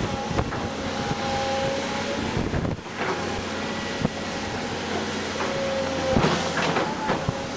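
Tracked hydraulic excavator at work: its engine running steadily, with a tone that comes and goes as the boom and bucket move, and a few short knocks.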